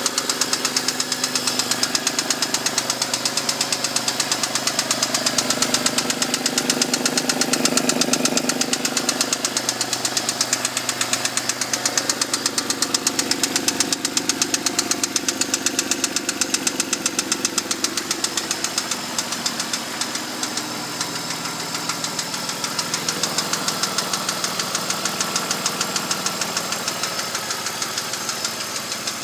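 BMW E39's M52TU inline-six engine running with a fast, even knock from the front of the cylinder head near the VANOS units, the knock quickening as revs rise. The owner cannot tell whether it is the VANOS or worn bearing shells.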